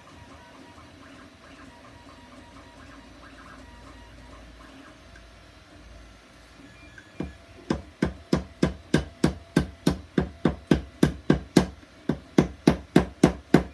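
Faint handling of small plastic pieces, then, about halfway through, a steady run of sharp wooden knocks at about three a second, with a brief pause near the end. The knocks are a wooden block tapping 3D-printed plastic puzzle pieces down so that their square pins seat in the square holes.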